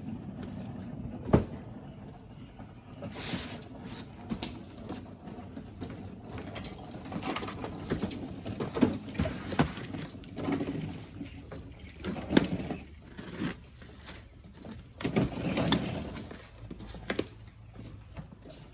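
Cardboard shipping cases being handled and opened: scattered knocks, scrapes and rustles, with a sharp knock about a second in.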